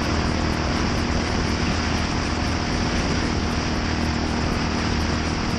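Yamaha SR400's single-cylinder engine running steadily through a NitroHeads aftermarket muffler, with an even exhaust note and a strong hiss over it.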